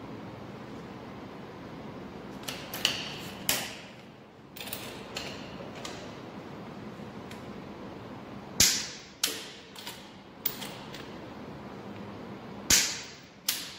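Torque wrench and ratchet on engine bolts, brought up to torque in steps: scattered sharp metallic clicks in small clusters, the loudest a little past halfway and near the end.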